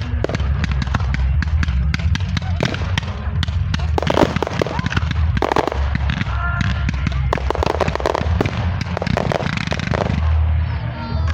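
Fireworks going off: a dense run of rapid crackling pops, with heavier bursts through the middle.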